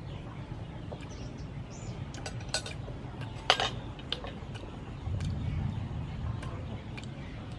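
Metal spoon clinking a few times against a soup bowl while eating, short sharp clinks over a steady low rumble in the background.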